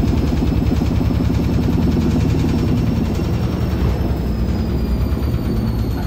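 Gorenje SensoCare front-loading washing machine running, its drum turning with a steady low rumble and a fast rattle. A thin high whine runs over it and slowly drops in pitch from about halfway through.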